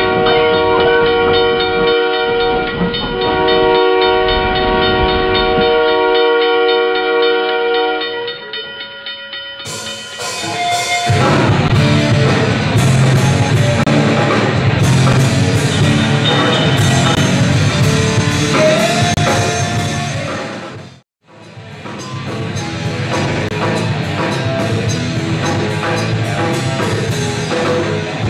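A multi-tone train horn sounds a held chord over a low rumble for about the first eight seconds, then fades. A live rock band with drums comes in loudly through the PA. The sound cuts out for a split second about 21 seconds in, then the band carries on.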